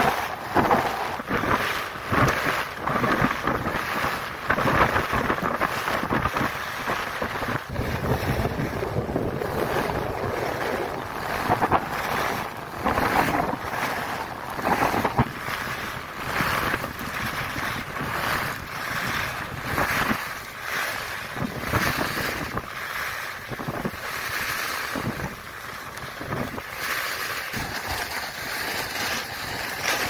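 Wind rushing over the microphone of a camera carried by a skier at speed, mixed with skis hissing and scraping on firm groomed snow. The noise swells and eases every second or two as the turns link.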